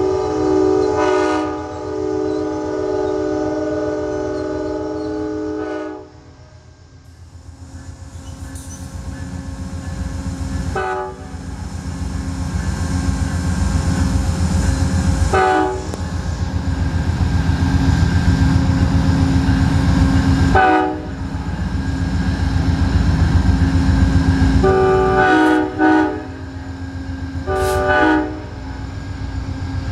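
Two Amtrak GE Genesis P42DC diesel locomotives pulling a passenger train away from the station. A long multi-note horn chord sounds for the first six seconds and cuts off. Then the diesel engines' throbbing rumble builds as the train gains speed, broken by a series of short horn blasts, two of them in quick succession near the end.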